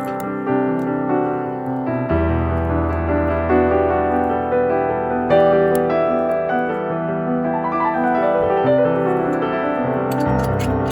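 Background music led by piano, with a bass line coming in about two seconds in and light ticking percussion near the end.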